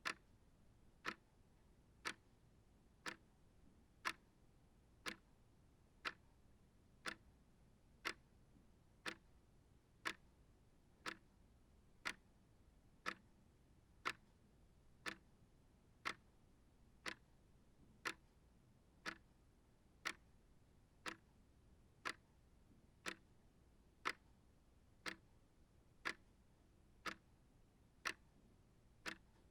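Small shelf clock ticking steadily, about one sharp tick a second.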